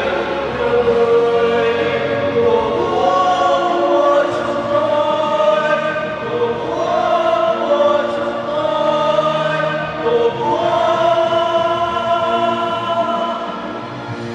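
Three male voices singing a Vietnamese song together into microphones, with long held notes.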